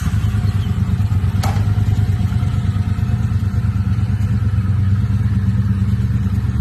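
Large motorcycle engine running loud at a steady idle, with one sharp click about a second and a half in.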